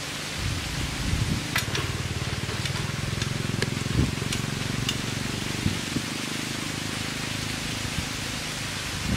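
Spring-loaded hand shears snipping into thin PVC pipe: a string of short sharp clicks between about one and a half and five seconds in, over a steady low drone.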